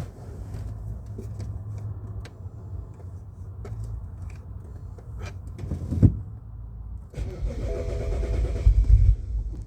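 Scattered clicks and one loud knock about six seconds in, then the 2008 BMW 135i's starter cranks its engine from about seven seconds in, a whine over a low rumble, while the fuel system is primed after a fuel pump replacement.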